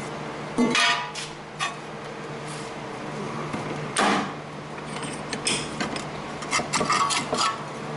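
Steel body panel pieces clanking and scraping as they are handled. There is a ringing clank just under a second in, another about halfway, and a quick run of knocks and rattles near the end, over a steady low hum.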